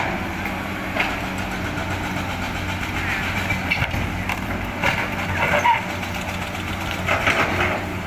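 Tracked hydraulic excavator's diesel engine running steadily under digging load, with scraping and knocking of rocks and soil against the steel bucket several times, loudest between about four and seven and a half seconds in.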